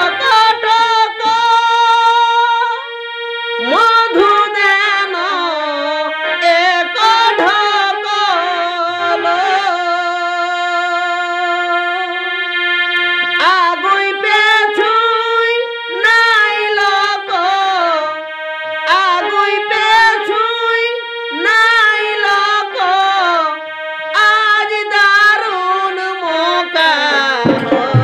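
Jhumur folk song: a high voice sings long, wavering held notes over instrumental accompaniment, and drums come in near the end.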